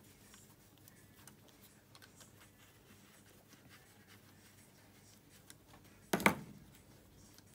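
Faint clicks and scrapes of gloved hands and a small wrench working the cam chain tensioner off the cylinder of a JS171FFM 250 cc engine, with one sharp double knock about six seconds in.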